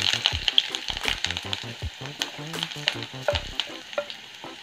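Freshly added chopped ginger frying in hot sesame oil in a clay pot: a steady sizzle with scattered sharp crackles and pops, the sizzle slowly easing off.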